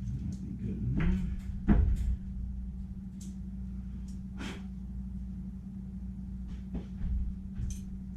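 Scattered knocks and clicks of tools and metal parts being handled on a workbench, the loudest about two seconds in, over a steady low hum.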